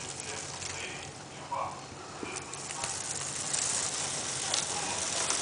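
A steady crackling hiss, with faint voices in the background.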